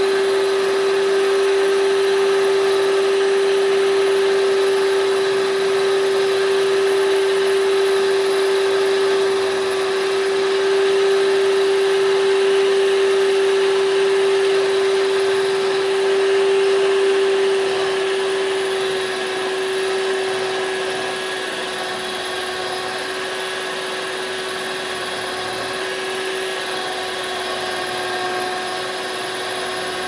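Electric drill running continuously with a steady whine as it bores into a Defiant deadbolt's lock cylinder, heard through the closed door. It eases off a little in loudness a bit past halfway.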